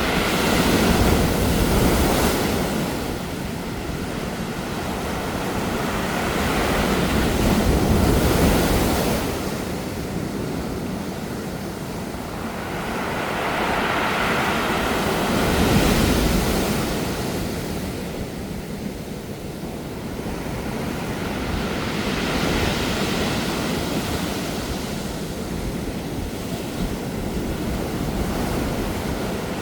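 Sea waves washing onto a pebble beach, the pebbles rolling in the surf. The wash swells and fades about every seven seconds.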